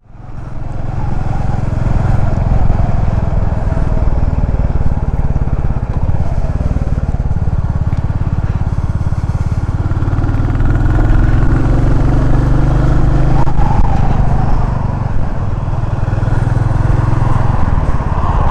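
Motorcycle riding along, its engine note rising and falling a little under a steady rush of wind and road noise, picked up by a lavalier mic at the rider's open-visor helmet.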